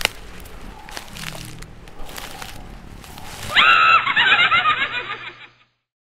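Spooky logo-intro sound design: a dark, rumbling bed with several sharp hits and swells, then, about three and a half seconds in, a loud high wavering cry lasting about two seconds before it cuts away to silence.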